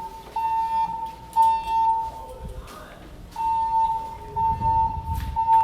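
Fire alarm evacuation tone: a steady single-pitched beep sounding in repeated pulses, with a longer pause about halfway through.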